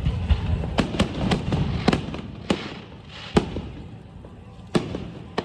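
Fireworks going off: a quick string of sharp bangs in the first few seconds and two more near the end, over a low rumble.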